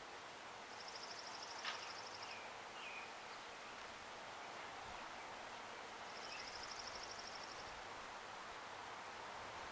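Distant songbirds outdoors: two high, buzzy trills about five seconds apart, each about a second and a half long, with a few faint chirps and one sharp tick, over a steady background hiss.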